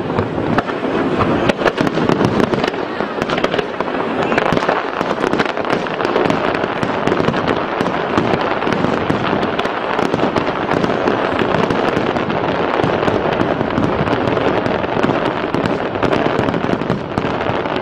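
Fireworks display in a dense barrage: many rapid, overlapping bangs and pops with no break.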